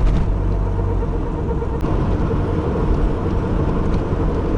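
Car driving on the road with a worn wheel hub bearing giving a steady hum over the rumble of the tyres and road.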